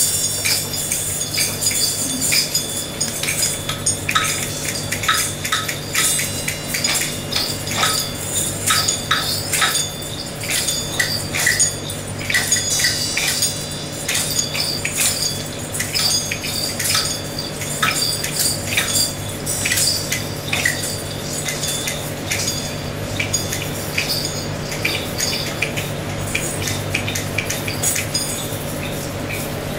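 A group playing small hand percussion at once: scattered metallic clinks, jingles and taps overlapping irregularly over a steady low hum, growing sparser over the last several seconds.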